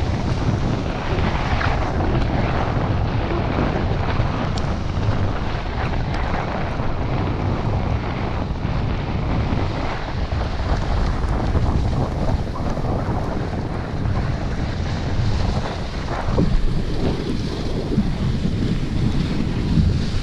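Wind buffeting the microphone of an arm-mounted GoPro during a snowboard descent: a steady, heavy rumble, with the hiss of the board sliding over the snow.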